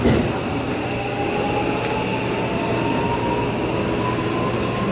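JR West 323 series electric train running on the line, with a rising motor whine as it accelerates over the rumble of the wheels on the rails.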